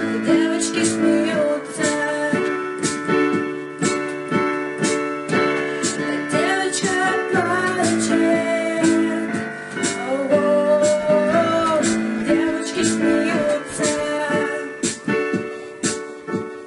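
Music played on an electric keyboard in a piano sound: held chords with a melody line over them, fading near the end.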